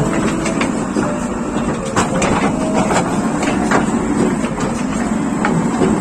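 JCB 3DX Plus backhoe loader's diesel engine running steadily under work, with scattered sharp knocks and clatters throughout.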